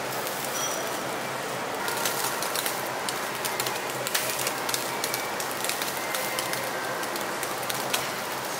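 Hanwoo beef rib meat sizzling on a wire grill over charcoal: a steady hiss dotted with many sharp pops and crackles.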